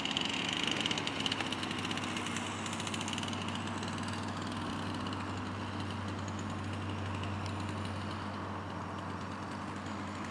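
Lure-coursing machine's motor running steadily as it reels in the lure line, a continuous low hum, with a hiss that is strongest in the first couple of seconds and then fades.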